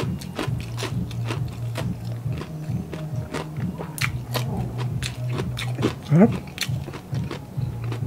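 Close-miked chewing of super crispy deep-fried mussels and cucumber sticks, with many sharp crunches in an uneven rhythm. A short rising hum from the eater comes about six seconds in.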